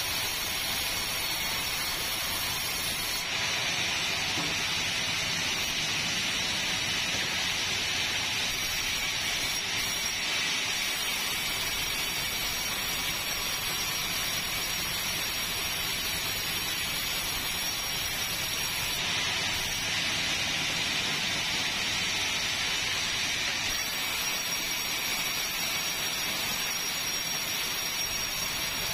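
Sawmill machinery running steadily: a dense, even hiss with no clear beat, shifting slightly in its upper part now and then.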